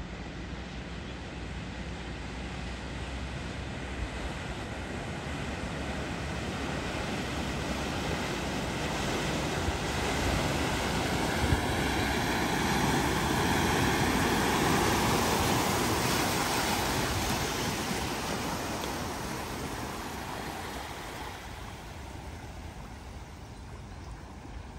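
An SUV driving through deep floodwater: a rushing wash of spray and engine noise that swells as the vehicle approaches, is loudest around the middle, and fades away again.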